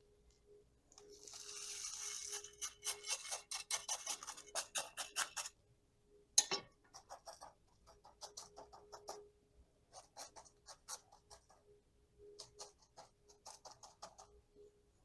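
Gritty bonsai soil being poured and worked in around a cutting's roots in a pot: dry scratching and rapid clicking of grains for a few seconds, one sharper click about six seconds in, then scattered clusters of ticks. A faint steady hum lies underneath.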